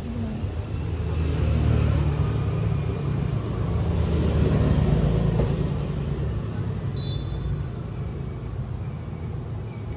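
Low rumble of passing road traffic that swells in the middle and then eases. Near the end, short high chirps repeat about once a second.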